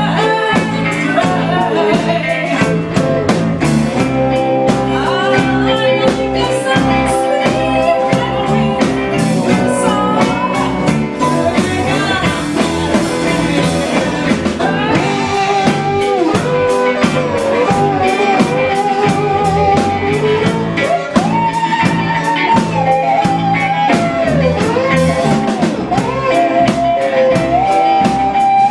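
Live band playing a slow soul-blues song: guitars, keyboard, bass and drums keep a steady beat under a lead melody of held, wavering notes.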